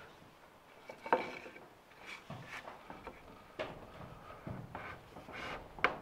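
Timber purlin being guided into its angled joint on a post: wood scraping on wood, with two sharp wooden knocks, about a second in and near the end. The slight angle on the joint lets the beam slide in and seat nearly on its own.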